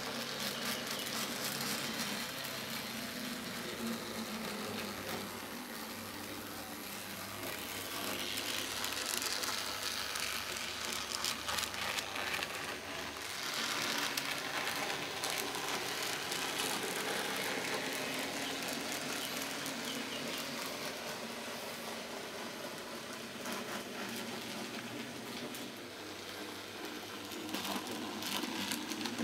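N scale model locomotives running: small electric motors and gear trains whirring steadily, with a running patter of fine clicks from the wheels on the track.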